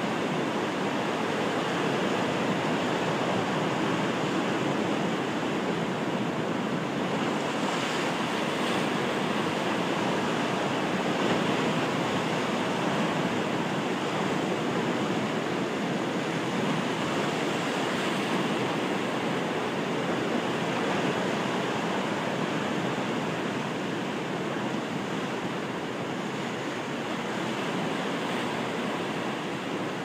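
Atlantic surf breaking and washing over a low granite rock shore: a steady rush of water in which no single wave stands out.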